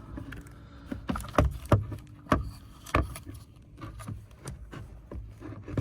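A string of separate sharp clicks and knocks as a replacement steering wheel is handled and worked onto the splined steering shaft, with its wiring plug fed through behind it.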